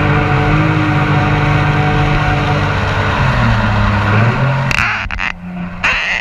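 Mini jet boat's engine running steadily under way, dropping in pitch about three seconds in as it eases off. Near the end the engine sound thins out and a few short bursts of rushing noise come through.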